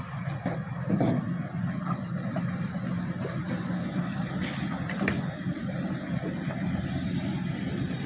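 SANY SY135C crawler excavator's diesel engine running steadily, with short knocks about a second in and again about five seconds in.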